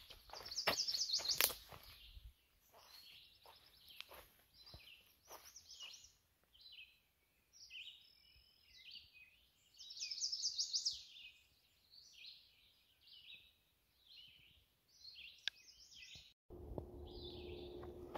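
Songbirds singing many short, varied phrases with quick high trills, strongest about a second in and again about ten seconds in. Soft clicks and rustles come in the first few seconds. Near the end the sound cuts suddenly to a steadier rustling with a low hum.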